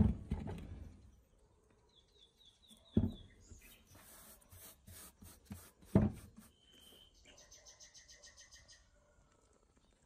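Metal ceiling-fan motor parts knocking against a metal workbench as they are handled: three knocks about three seconds apart, with light clicks between. Small birds chirp and trill in the background.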